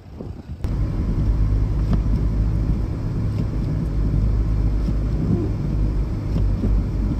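Steady low rumble of a car driving, heard from inside the cabin. It starts suddenly under a second in.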